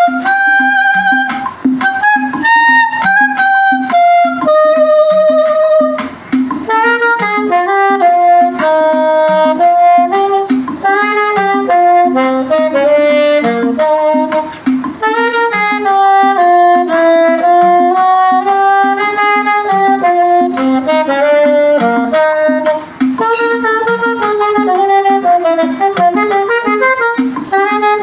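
Saxophone playing a slow hymn melody in sustained, smoothly joined notes over a backing accompaniment with a steady pulsing low part.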